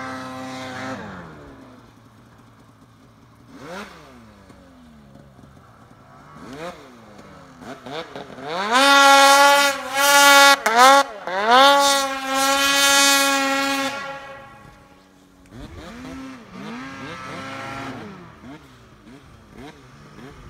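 Two-stroke mountain snowmobiles revving up and easing off. One sled is loud from about 8 to 14 seconds in, its engine pitch climbing and dipping repeatedly with the throttle. Fainter revs from other sleds come near the start and again later.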